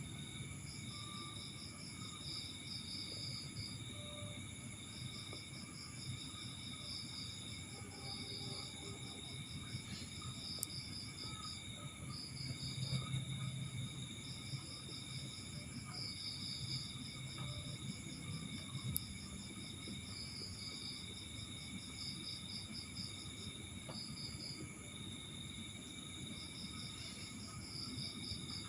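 Crickets chirping in repeated trains of rapid high pulses, over steady high-pitched insect tones, with a few faint clicks.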